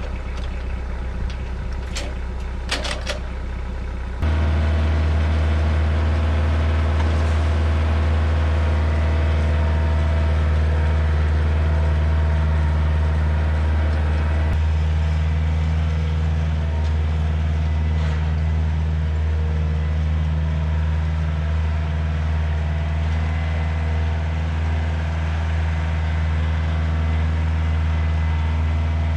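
Kioti DK40se diesel tractor engine running steadily, with a few sharp clicks about two to three seconds in. About four seconds in the engine abruptly gets louder and keeps running evenly.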